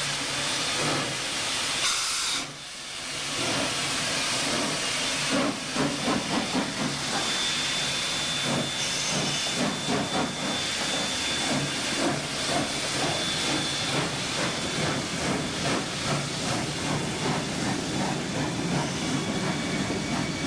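SNCF 141R 2-8-2 steam locomotive pulling away: first a steady hiss of steam, then from about five seconds in a regular beat of exhaust chuffs, a few a second, as the train gets under way.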